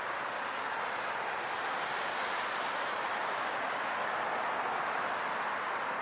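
Steady city road traffic: cars and taxis driving past on a wide multi-lane street, a constant even rush of tyres and engines.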